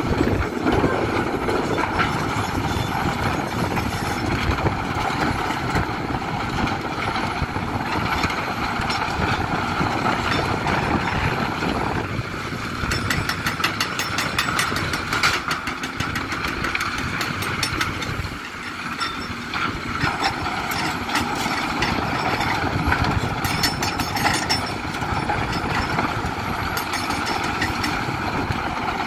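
Heavy machinery working rock: the diesel engines of tracked excavators and a mobile stone crusher run steadily. Over them come stretches of rapid clattering and knocking, strongest a little before the middle and again later, from stone tumbling into the crusher and a hydraulic breaker hammering rock.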